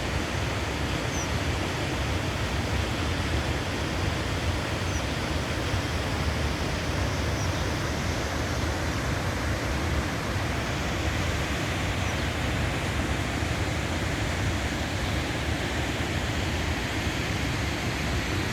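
Steady rush of falling water from a mountain waterfall or its stream, an even roar without pauses. A few faint high chirps sound now and then over it.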